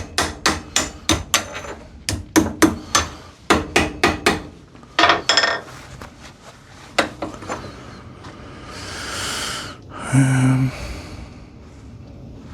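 A hammer tapping repeatedly on the rust-seized screw thread of a vintage Record G-clamp to break the rust inside the thread: quick runs of sharp metal strikes, about three or four a second, for roughly five seconds. A few more blows follow, then a longer rushing noise near the end.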